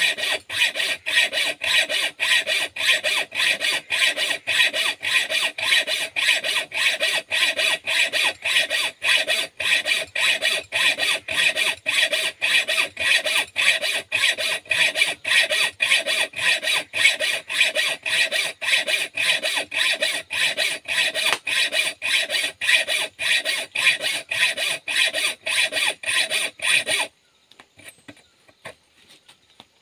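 Hand hacksaw cutting a metal pipe clamped in a bench vise: quick, even back-and-forth strokes of the blade biting the metal. The sawing stops suddenly near the end, leaving a few faint clicks.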